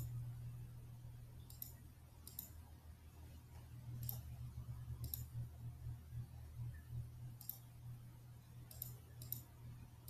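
Faint computer mouse clicks, about seven single clicks at irregular intervals, over a low steady hum.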